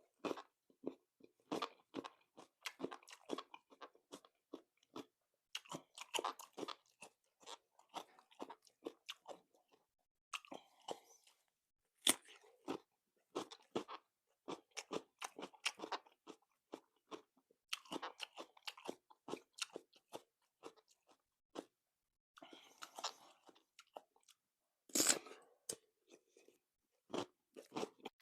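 Close-up crunching and chewing of raw cucumber: crisp, irregular crackles from bites and chewing, with a few short pauses.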